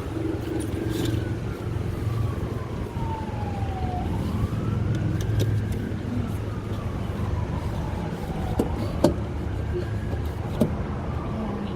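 Emergency-vehicle siren wailing, slowly falling and rising in pitch over and over, above a steady low rumble; a couple of sharp clicks near the end.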